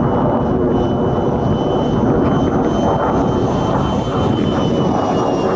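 Electric ducted fan of a 90mm EDF model F-16 jet whining in flight: a thin high tone that rises slightly and then falls away near the end, over a steady rushing noise.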